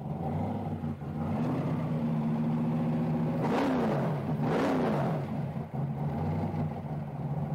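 Supercharged 572 big-block V8 of a 1969 Chevy Nova running at idle, blipped twice about halfway through, the revs rising and falling quickly each time.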